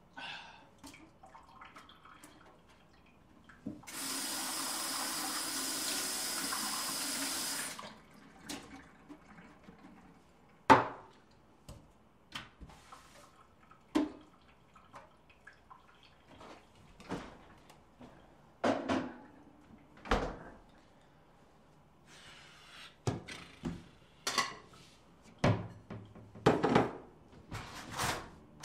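Kitchen sink foley: a tap runs steadily for about four seconds, then a string of separate sharp knocks and clunks as things are handled around the sink and cupboard, some much louder than others.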